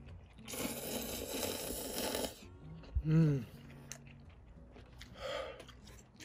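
A person slurping instant ramen noodles in a long noisy draw lasting about two seconds. Just after halfway comes a short, arching vocal sound, the loudest moment, and near the end a second, shorter slurp.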